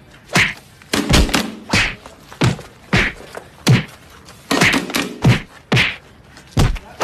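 A run of heavy thuds and sharp slaps in a rough beat, about one hit every two-thirds of a second, with a low held tone under some of the hits.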